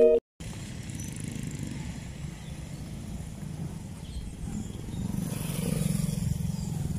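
Street traffic noise dominated by a motorcycle engine running, growing louder about five seconds in.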